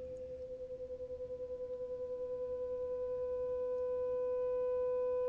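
Two sine tones at 500 Hz and 510 Hz from Pure Data oscillators, crossfading as one fades in and the other fades out. Together they beat about ten times a second, a wavering that smooths out toward the end as one tone takes over.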